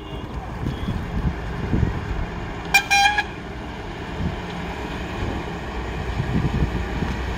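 Vehicle engines rumbling low and steady, with a short, loud horn blast about three seconds in.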